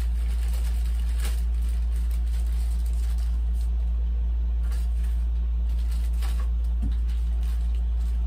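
Clear plastic parts bag crinkling in short bursts as it is handled, over a steady low hum.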